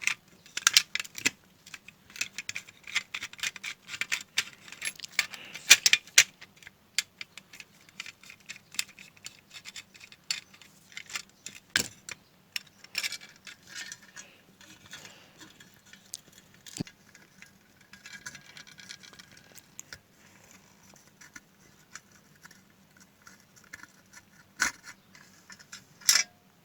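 A sewing machine foot pedal being opened up by hand: small clicks, rattles and scrapes of its casing and parts being handled, busy for the first six seconds or so, then sparser, with a sharp click near the end.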